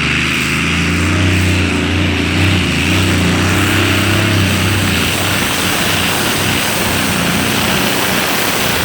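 Tractor-pulling machine's engine running hard under load, a steady engine tone for about the first five seconds, then giving way to a broad rushing noise with the engine tone much fainter.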